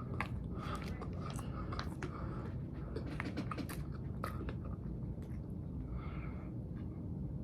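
A person chewing and biting food close to the microphone, with many small mouth clicks and crunches, over a steady low hum.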